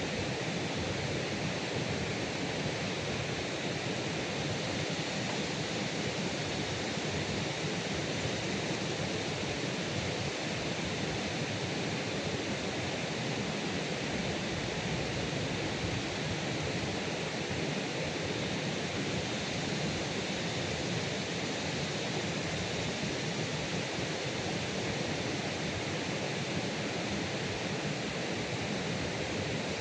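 Steady, even rushing noise of water that does not change.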